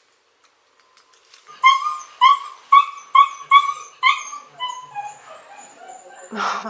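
A dog whining and crying: about six high-pitched cries, roughly two a second, then quieter whimpers that fall in pitch and fade, with a short harsh burst near the end.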